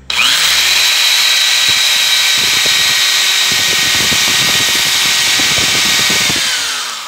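Electric hand drill spinning up with a rising whine and running at high speed, a ballpoint pen's plastic barrel chucked in it scraping against a hard wooden block that shaves it smooth. The motor winds down near the end.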